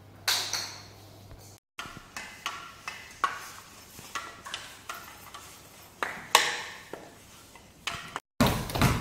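A series of sharp knocks, each with a short ring, about two a second, broken twice by a brief dropout.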